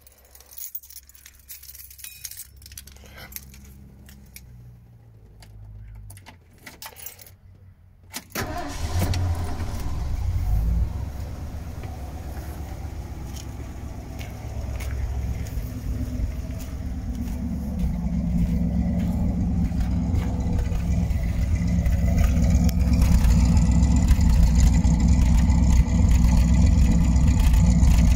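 Ford 302 (5.0-litre) V8 in a Ford Econoline van: a few clicks and key jingles, then the engine starts about eight seconds in and settles into a steady idle. The idle grows louder toward the end as the microphone nears the exhaust tailpipe.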